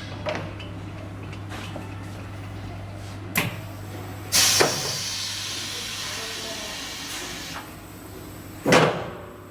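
Koch Sprint MT CNC mortise and tenon machine working: a steady low hum under sharp mechanical clunks. One clunk a little over three seconds in, a louder one about a second later followed by a hiss of air lasting about three seconds, and another loud clunk near the end.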